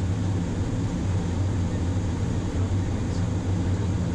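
Steady flight-deck noise of a Boeing 737-800 on approach: a low, even hum with a rush of air, the engines at minimum thrust.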